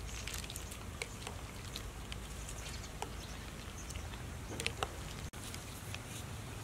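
Faint, scattered clinks and clicks of a metal spoon stirring through a ceramic bowl of cut fruit, ice and coconut milk, over a low steady background hum.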